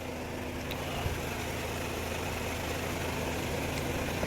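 Steady low mechanical hum, like a motor or engine running somewhere in the workshop, with a couple of faint light clicks.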